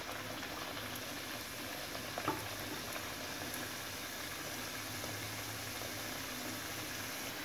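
Parotta shallow-frying in hot oil in a pan, a steady sizzle; one light click about two seconds in.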